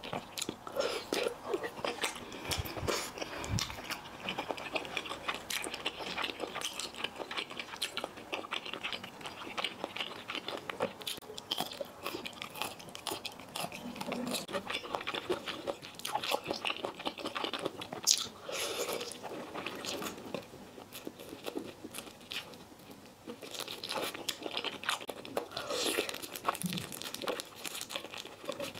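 Close-miked eating: a person chewing and biting thick potato noodles and tofu, with many small sharp, clicky mouth noises coming irregularly throughout.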